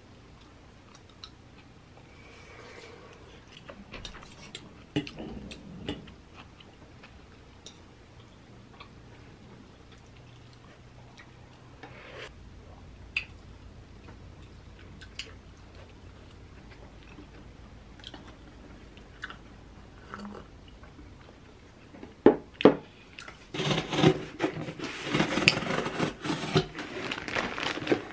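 Quiet eating at a table: light clinks of a metal fork and spoon on a plate and soft chewing. About 22 seconds in come a couple of knocks of a cardboard box being handled, then loud crinkling of a plastic bag being pulled out and handled.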